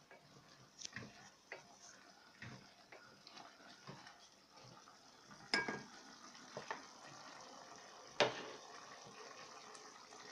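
Wooden spatula stirring chunks of stewing meat in a multicooker's metal inner pot: soft scrapes and small clicks, with two sharper knocks against the pot, the first about halfway through ringing briefly. A faint steady hiss of the cooking meat lies underneath.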